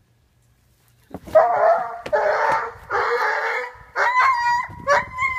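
A dog yelping and crying out in a scuffle with a cat. After about a second of quiet come three loud, rough cries, then a run of shorter, high yelps.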